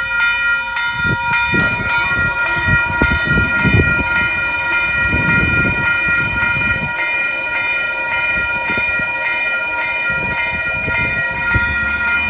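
Railroad grade-crossing warning bell ringing steadily while the crossing gate arms lift. An uneven low rumble runs under it through the first half.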